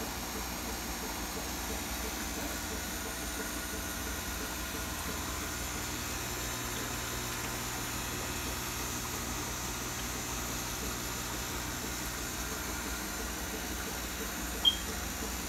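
Steady hum and hiss of an aquarium air pump running. Near the end, one very short, sharp high chirp.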